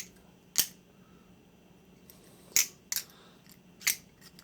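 A few sharp metallic clicks, spaced irregularly: the handles and latch of a large balisong knocking together as it is handled and opened slowly.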